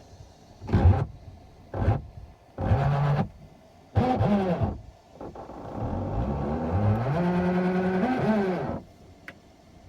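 Tesla Model X auto-presenting front door mechanism grinding and whining as its motor runs in four short bursts and then one longer run of about three seconds, the pitch rising and falling. The door drive has failed.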